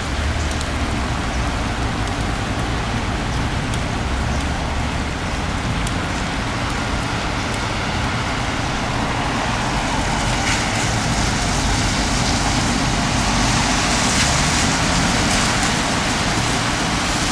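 Steady hiss of sleet and rain falling on the street, trees and balconies, with a low rumble underneath. It grows slightly louder past the middle.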